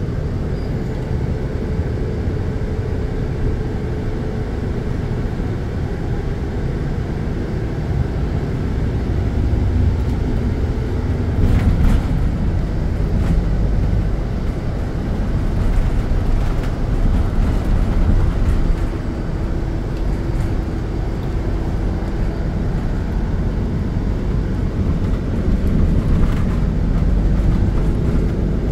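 Interior of a moving city bus: a steady low rumble from the engine and the road, with a faint hum that changes pitch a few times.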